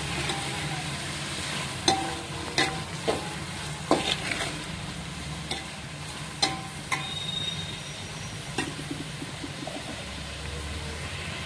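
Onions, tomatoes and green chillies frying in a metal pot, with a steady sizzle, while a metal spatula stirs them and clinks and scrapes against the pot about ten times.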